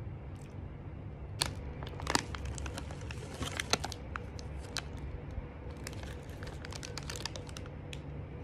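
Aluminium foil wrapper crinkling and crackling in irregular bursts as it is handled, over a low steady hum.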